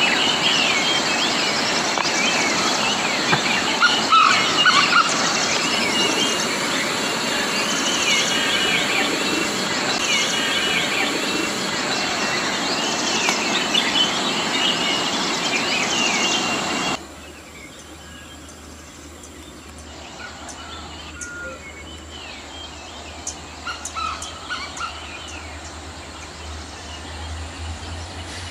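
Steady rush of falling water with birds chirping over it. About two-thirds of the way through it cuts to a much quieter scene, where a low steady rumble of a diesel train approaching unseen through the tunnel sits under scattered bird calls.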